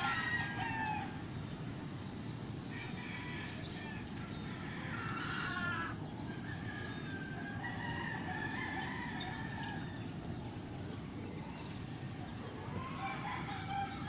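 Roosters crowing again and again, several separate crows of a second or two each, over a steady low background hum.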